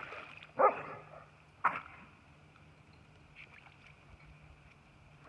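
A dog pouncing in shallow water, two sharp splashes about a second apart, then small faint sloshing.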